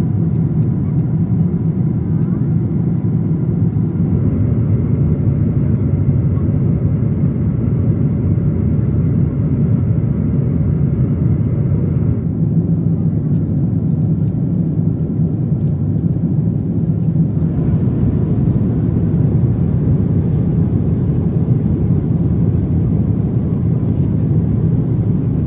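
Steady low cabin noise of a Boeing 777-200ER in cruise, from its engines and the airflow over the fuselage. The higher hiss drops away for a few seconds about halfway through.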